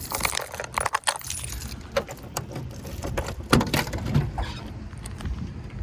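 Cat litter being loaded into a Mazda Miata: a run of irregular clicks, knocks and rustling from handling, with the heaviest knock about three and a half seconds in.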